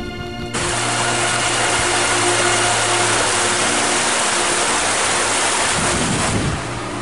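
Stream water rushing fast down a narrow stony channel between houses: a steady, loud rushing hiss that starts abruptly about half a second in and thins a little near the end.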